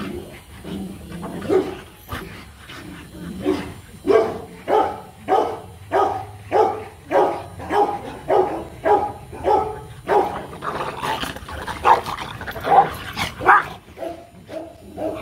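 Rottweilers barking during rough play: a quick, even run of barks about two a second from about four seconds in, turning into louder, higher, uneven barks and yips near the end.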